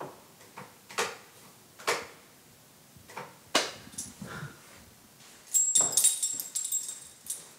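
A dog whimpering in short cries, about four of them spaced roughly a second apart, then a louder jingling clatter a little past halfway through.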